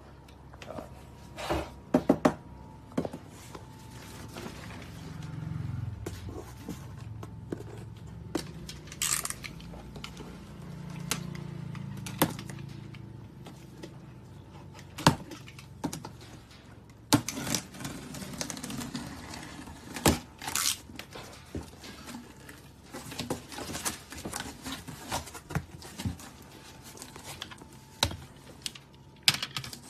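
A cardboard carton being handled and opened: scattered knocks and scrapes on the box, a box cutter slicing the packing tape with a couple of longer tearing sounds, then plastic lint rollers clattering against each other as hands rummage through them.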